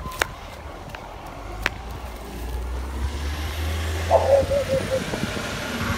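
A recycling truck is approaching up the street, its engine running and its tyres hissing on the wet road. The sound grows louder in the second half. Two sharp clicks come in the first two seconds.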